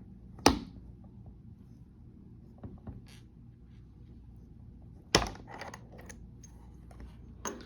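Zinc die-cast bayonet connector plug being mated by hand to its die-cast bulkhead: two sharp clicks about five seconds apart, with faint ticks between and a smaller click near the end. The click is the audible sign of the bayonet coupling latching.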